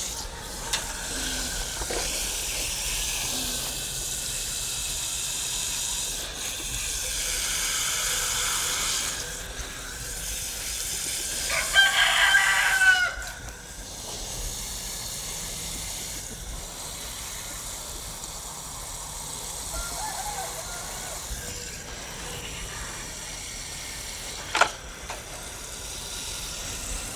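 A rooster crows once, loud, about halfway through. Steady hiss from microphone interference runs under it, with a sharp click near the end.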